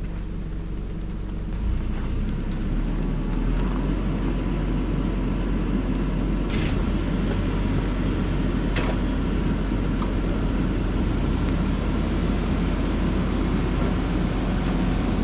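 Motor vehicle engine running steadily, getting louder about two seconds in, with two sharp clicks partway through.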